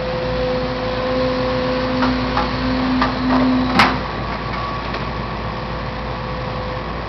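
Heavy demolition machinery running with a steady low rumble and a whine that climbs slightly, then cuts out just after a sharp crack about four seconds in. A few lighter knocks come before the crack.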